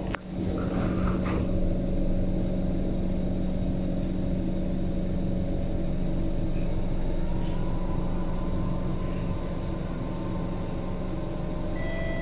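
Inside an SMRT C151 metro train car: the doors shut with a knock, then a steady hum of the stationary train. From about halfway, steady whining tones come in, with more joining near the end as the traction equipment takes power and the train starts to pull out.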